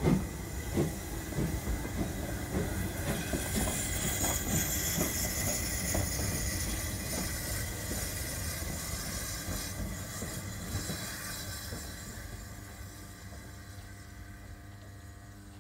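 O gauge model steam tank locomotive pulling away as the shunter. A rhythmic beat quickens over the first few seconds over a steady hum and hiss, then fades as the engine moves off under the bridge.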